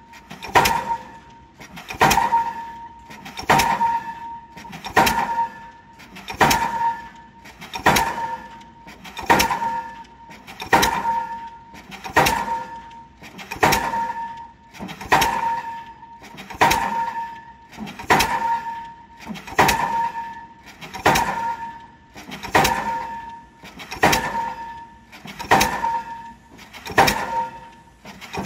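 Diesel pile hammer driving a foundation pile, striking steadily about once every one and a half seconds; each blow is a sharp metallic bang that rings on briefly.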